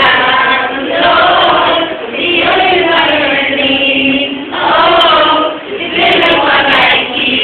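A group of students singing a song together in unison, without instruments, in sung phrases broken by short pauses.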